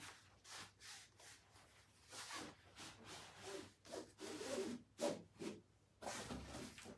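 A heavy hardcover book being slid out of its cloth-covered slipcase: a faint series of short, irregular rubbing and scraping strokes.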